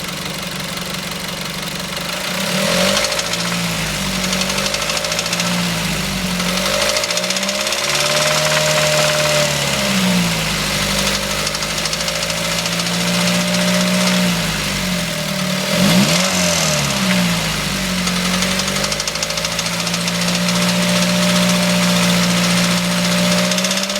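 Mazda 3 engine running and revved up and down several times, with a persistent ticking/rattling from the engine. The noise began after an engine flush and Seafoam treatment and has not been cured by a new timing chain, guides and tensioner; the shop suspects the oil pressure solenoid, and the owner suspects the oil pump.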